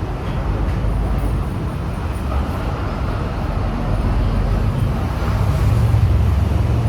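Road traffic rumble going on steadily, swelling louder in the second half as a vehicle comes closer.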